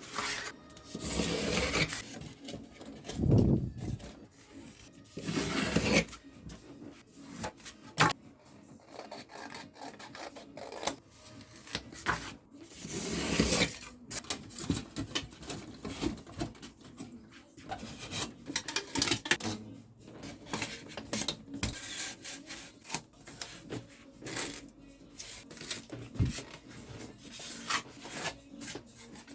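Polystyrene foam being rubbed and scraped by hand in irregular strokes, some long and some short, with the loudest strokes near the start and about halfway through.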